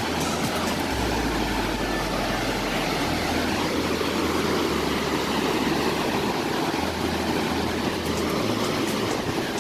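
Steady rushing roar of a 20-metre waterfall's falling water, even and unbroken. A low hum underneath shifts in pitch every second or two.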